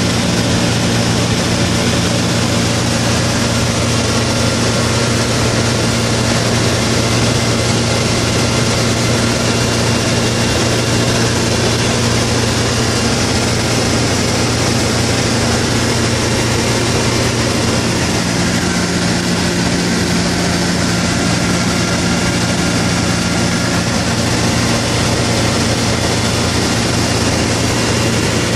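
Light single-engine propeller aircraft's engine and propeller droning steadily in flight, heard inside the small cockpit with rushing air noise over it. The pitch shifts slightly about two-thirds of the way in.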